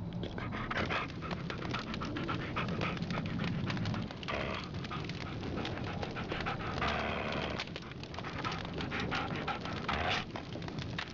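Rapid, animal-like panting and snuffling from the feral children, with louder breathy hisses about four, seven and ten seconds in.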